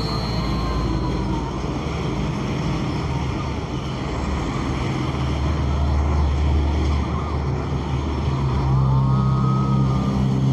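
Road traffic going by: heavy trucks and motorbikes. A deep diesel engine rumble builds about halfway through as a container truck passes, and a second large truck's low engine hum is loudest near the end.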